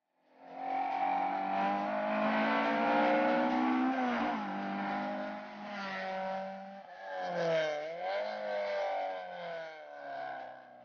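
Peugeot 309 rally car's four-cylinder engine at full throttle, coming in about half a second in, its pitch climbing slowly and dropping at a gear change about four seconds in. About seven and a half seconds in the revs dip and pick up again, and the sound fades as the car moves away.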